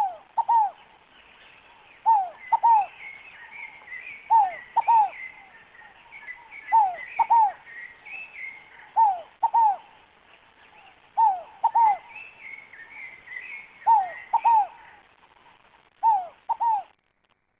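Rolinha fogo-apagou ground dove calling: a pair of short down-slurred coos, repeated about every two seconds. Fainter high twittering from other small birds runs behind it.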